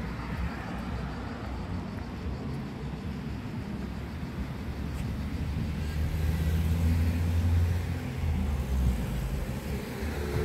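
Street traffic with a car's engine passing close by, its low hum growing louder from about six seconds in.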